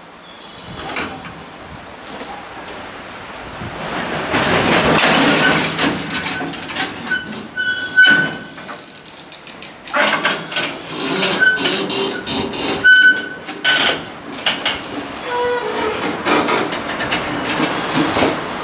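Knuckle couplers between the container flatcars of a starting freight train clanking and banging one after another as the slack runs out, with short high squeals in between.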